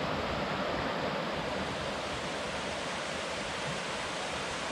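Steady rush of a stream's water running over rocks, an even hiss with no let-up.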